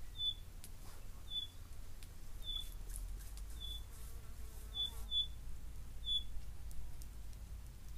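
Short high chirps repeating about once a second, each one brief and steady in pitch, over a low rumble.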